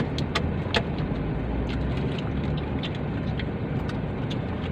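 Steady low hum inside a car's cabin, with scattered short sharp clicks and taps, several in the first second and a few more later.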